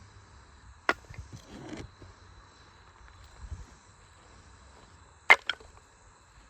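Sharp cracks of wood, such as sticks being snapped or split for a campfire: one about a second in, then two close together near the end.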